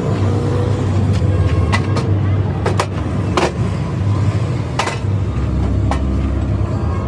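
An engine running steadily with a low rumble, with several sharp knocks, the strongest about three and a half seconds in and another near five seconds.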